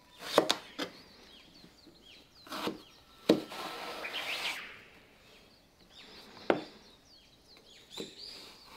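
Chef's knife slicing a peeled eggplant lengthwise on a cutting board: a scattering of sharp knocks as the blade meets the board, with a crisp rasp of the blade going through the flesh about three seconds in.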